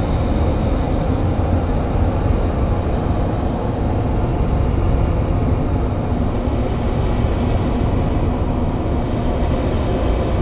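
Experimental noise-drone music: a steady, dense low drone with hiss above it, without beat or melody.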